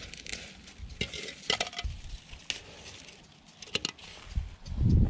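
Hand-harvesting among cucumber vines: leaves and stems rustle, with a few sharp snaps and clicks as produce is picked and dropped into a plastic bowl. A louder low thump comes near the end.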